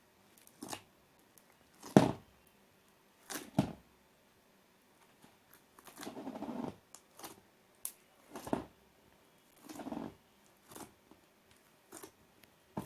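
Scattered soft clicks and squishy handling noises from homemade slime being worked by hand, with a longer squelching stretch about six seconds in.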